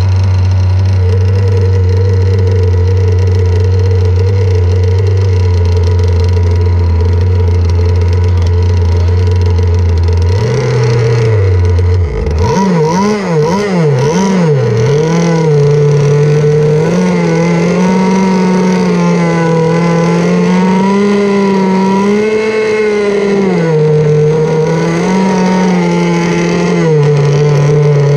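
Two-stroke gas engine of a Pro Boat Zelos 48 RC boat, heard loud and close: a steady idle for about ten seconds, then the pitch rises and it revs up and down under repeated throttle blips for the rest of the time.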